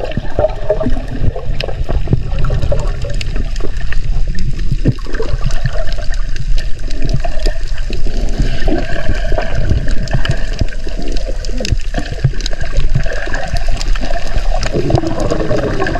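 Water heard with the microphone held under the surface: a loud, muffled rumble of moving water with bubbling and many small crackles.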